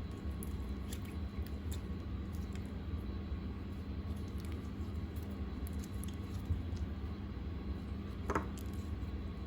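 Slime being squished and handled in the hands: soft, wet clicks and squelches, with one brief squeaky squelch about eight seconds in, over a steady low hum.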